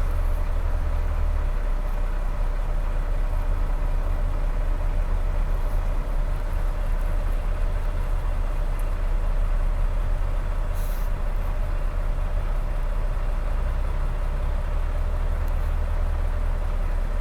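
Heavy diesel truck engine droning steadily at highway cruise.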